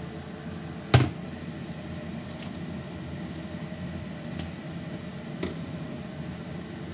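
Burner flame turned up high under a pot of crawfish boil, giving a steady low hum. One sharp knock comes about a second in, and a few faint ticks follow later.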